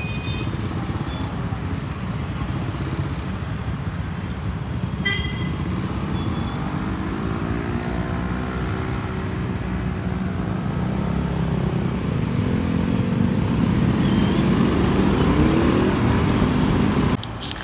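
City street traffic: engine rumble with engines rising in pitch as vehicles pull away, growing loudest near the end. A short horn toot about five seconds in, and the sound drops off abruptly just before the end.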